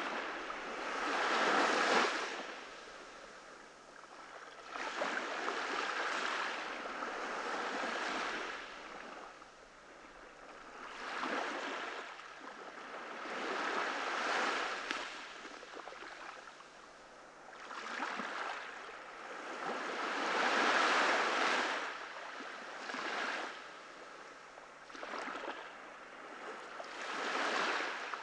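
Ocean waves breaking and washing up on a beach, surging and receding in a slow irregular rhythm, a swell every three to four seconds.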